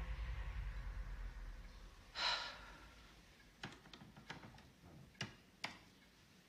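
A single sharp breath, a gasp or sigh, about two seconds in. Under it a faint low rumble fades out, and a handful of light clicks follow in the second half.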